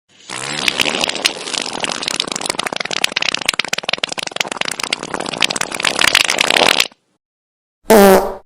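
Fart sound effect: a long, crackling, sputtering fart lasting about seven seconds, then a short pitched fart near the end.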